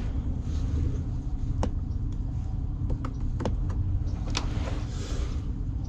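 A few short, sharp clicks and taps of hand tools working on a condenser's electrical wiring, over a steady low rumble.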